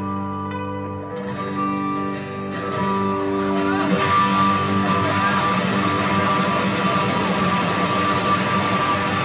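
Live Celtic punk band playing, heard from the audience seats in a large theatre. Held guitar chords ring for the first few seconds, then about four seconds in the full band comes in louder and denser.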